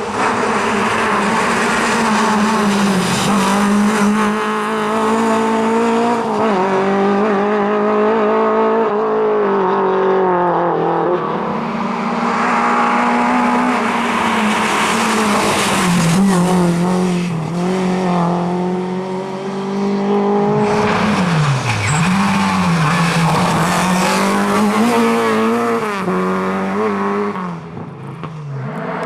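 Rally car engine at high revs, its pitch repeatedly dropping and climbing again with gear changes and throttle lifts, with some tyre squeal.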